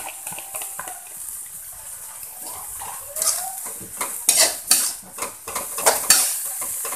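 Metal spatula scraping and knocking against a metal wok as vegetables are stir-fried, over steady sizzling. The strokes are sparse at first, then come quicker and louder from about halfway through.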